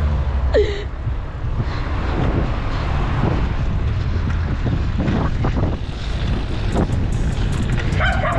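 Wind buffeting the microphone of a camera on a moving bicycle, a steady low rumble.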